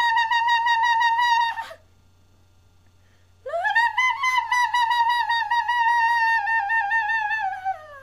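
Two long, wavering flute-like notes. The first breaks off about a second and a half in; the second begins about three and a half seconds in with an upward slide, holds with a wobbling pitch, then sags downward at the end.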